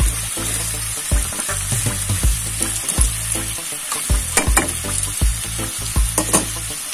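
Bamboo shoots and fern greens sizzling in a hot wok while metal tongs toss them, clacking against the pan irregularly, over a low steady rumble.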